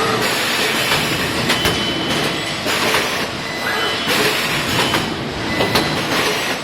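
FANUC spot-welding robots at work: loud, steady machine noise with a few brief high whines and a few sharp clicks.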